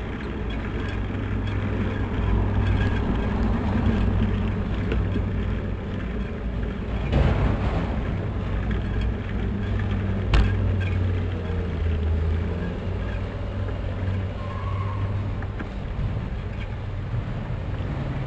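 Car traffic on a city street heard from a moving bicycle: a steady low engine and road rumble, with a brief rush of noise about seven seconds in and a sharp knock about ten seconds in.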